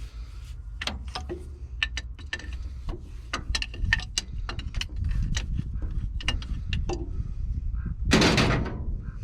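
Hand tools and hose fittings clinking and knocking on the excavator's metal in an irregular run of sharp clicks, as hydraulic hose fittings are worked loose, over a steady low rumble. A loud, harsh sound lasting about half a second comes near the end.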